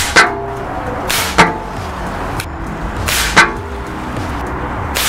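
Diana Stormrider Gen 2 .177 PCP air rifle firing three sharp shots, the second about a second after the first and the third about two seconds later.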